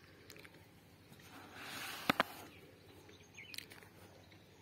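A paper notebook page being turned by hand: a short rustle about two seconds in with two sharp snaps of the page, then a few faint ticks.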